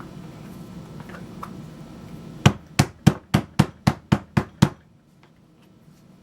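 Hammer tapping nine times in quick, even succession, about four blows a second, the first one the loudest.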